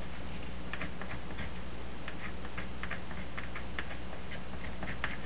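Liquid flux crackling and spitting under a hot soldering iron as the copper braid of RG-8 coax is tinned: irregular small ticks, several a second, over a steady low hum.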